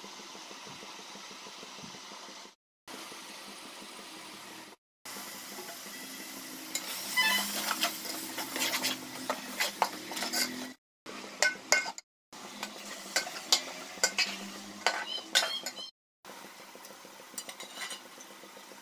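Onion-tomato masala sizzling as it fries in an aluminium pot, then a metal ladle stirring it with many sharp clinks and scrapes against the pot's sides. The sound drops out to silence briefly several times.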